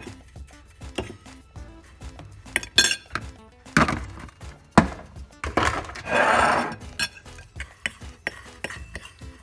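Kitchen utensils and dishes clinking and knocking against each other while chicken strips are rolled in breadcrumbs, with a second-long scraping noise about six seconds in. Background music plays underneath.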